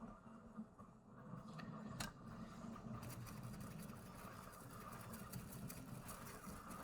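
A brush scrubbing flux residue off a freshly soldered circuit board: faint, quick scratchy strokes start about three seconds in, over a steady low hum. A single sharp click about two seconds in.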